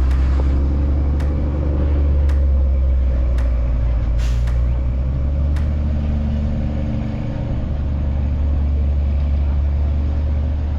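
Heavy highway traffic: a steady low rumble of trucks and cars with engine hum, and sharp ticks about once a second during the first half.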